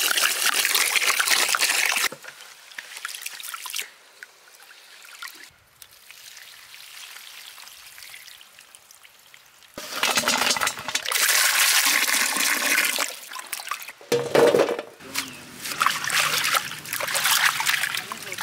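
Water poured into a stainless steel bowl of rice to soak it, for about two seconds. After a quieter stretch, water splashes and sloshes again from about ten seconds in, ending with hands swishing bunches of mint and coriander in a bowl of water, with a short thump along the way.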